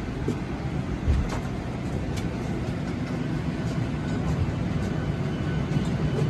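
Steady low rumble inside a Boeing 737-800's cabin, with a few light knocks and clicks; the sharpest comes about a second in.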